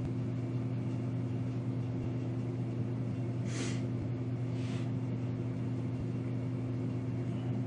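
Steady low machine hum throughout, with two short rustles from a hand moving close by, about three and a half and four and a half seconds in.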